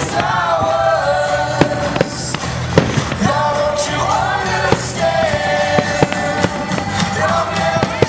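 Aerial fireworks going off in a string of sharp bangs and crackles over music with a singing voice.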